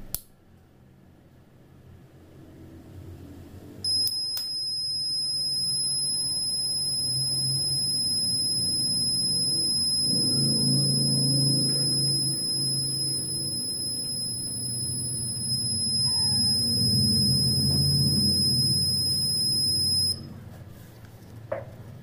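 Small piezo buzzer of a homemade fire alarm sounding one continuous high-pitched tone. It switches on suddenly about four seconds in, when the lighter-heated tube-light starter closes the circuit, and cuts off suddenly near the end.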